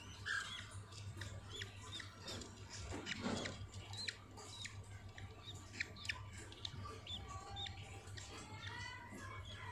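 Budgerigars chirping, the voices of chicks and their mother: many short, high chirps that flick up and down in pitch, scattered irregularly, over a steady low hum.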